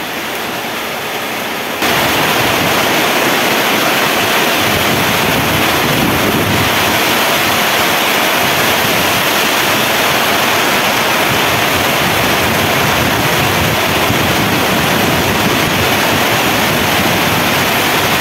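Heavy tropical rain falling steadily, a dense even rush; it gets louder about two seconds in and then holds.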